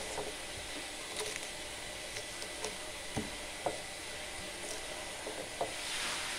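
Stone pestle crushing garlic cloves with salt in a stone mortar: scattered short knocks and crunches, the sharpest a little past the middle, over a steady hiss.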